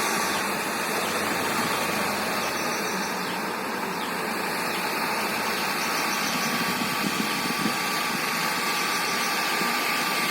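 Steady whir of a small electric motor, with a faint constant tone running through it.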